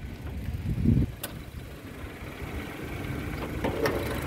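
Car bonnet being opened by hand: a dull thump about a second in, a sharp click just after, and more clicks near the end as the bonnet is unlatched and raised, over a low steady rumble.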